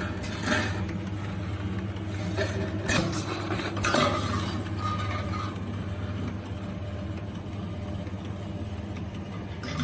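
FH-FLV30 automatic can seaming machine running with a steady motor hum, with a few sharp metallic clanks in the first four seconds.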